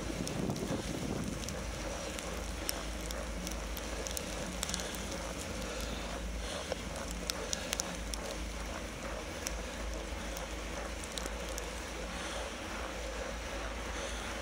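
Wind rumbling steadily on the microphone of a handlebar-mounted camera on a bicycle riding through snow, with the tyres rolling over the snow and scattered light ticks.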